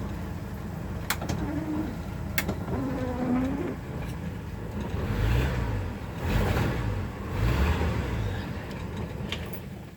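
1974 Ford F-250's 4.9-litre straight-six running while still warming up after a cold start. Its engine speed rises and falls three times past the middle.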